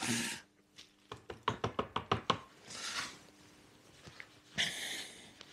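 Handling noises from drying a plastic drip tray with a rag: a quick run of about a dozen light knocks a second or so in, and short bursts of rag rustling, the last one loudest.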